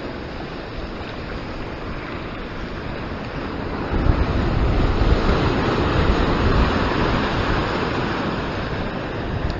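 Ocean surf breaking and washing over shore rocks, with wind buffeting the microphone. The wash swells louder about four seconds in and eases off toward the end.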